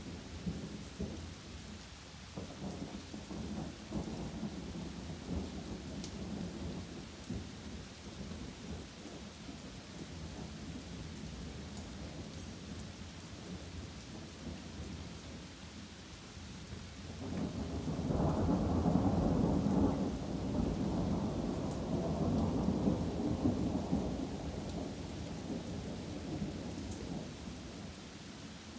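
Steady rain falling through trees, with thunder rolling. A long, louder roll of thunder swells up about two-thirds of the way through, then slowly fades.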